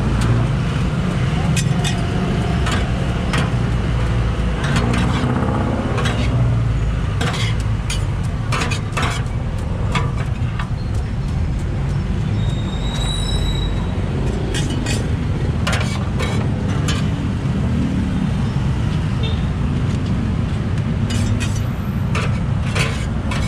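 Metal spatulas scraping and clacking on a steel flat-top griddle as chopped pork sisig is worked and scooped up, in irregular sharp strokes. Under it runs a steady rumble of street traffic.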